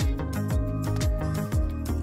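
Background music with a steady beat: deep bass drum hits about twice a second under sustained instrumental tones.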